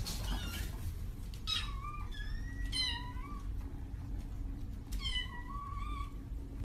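Kittens mewing: a string of short, high-pitched calls, a few of them overlapping, over a low steady hum.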